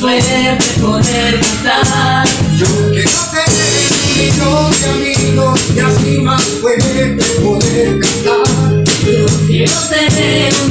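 Small live band playing a song: a drum kit with cymbals keeps a steady beat under electronic keyboard, acoustic guitar and electric bass.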